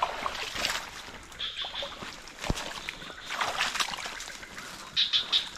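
Swamp water sloshing and splashing in irregular bursts while a submerged bubu fish trap is handled, with one sharp knock about two and a half seconds in.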